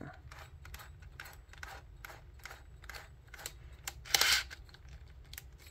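Light clicks and handling noise as an all-metal Jacobs drill chuck is turned onto the drill's spindle by hand, about three or four clicks a second, with one louder scraping rustle about four seconds in.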